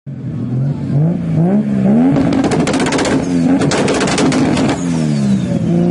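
Car engine revved up and down several times, with a rough, crackling rush at the height of the revs in the middle and a thin high whine falling in pitch near the end as the revs drop.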